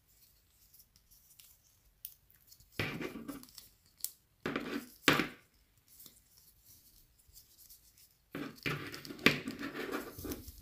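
A stiff rubber vest being pulled and worked off a plastic action figure: rubbing, scraping and handling noises in two short bursts, then a longer stretch near the end.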